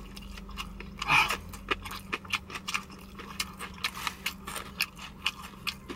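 Close-up chewing of a mouthful of fried chicken: wet mouth clicks and smacks, a few a second, with a louder smack about a second in.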